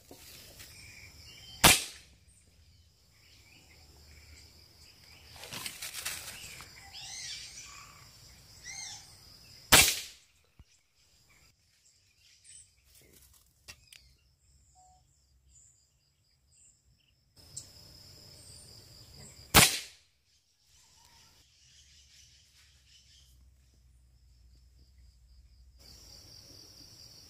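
Three sharp cracks of a PCP air rifle being fired, spaced about eight to ten seconds apart. Between the shots, birds chirp briefly and a steady high insect buzz comes and goes.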